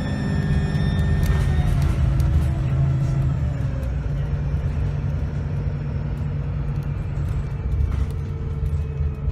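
Bus diesel engine running under way, a deep drone, with a high turbocharger whine that fades away in the first two seconds as the engine note slides down.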